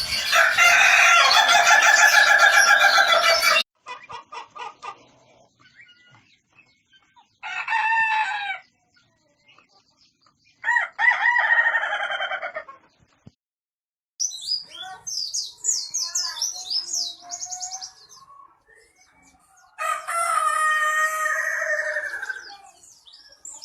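Ayam ketawa (laughing chicken) roosters crowing: a long crow of about three and a half seconds with a fast stuttering, laugh-like pattern opens, followed by several shorter crows and a last long one near the end. High chirps sound in between, midway.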